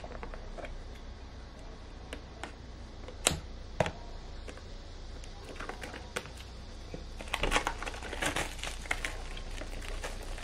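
Handling of a metal Blu-ray steelbook case: two sharp clicks a little over three seconds in, then a dense run of clicking and crinkling from its clear plastic sleeve a few seconds later.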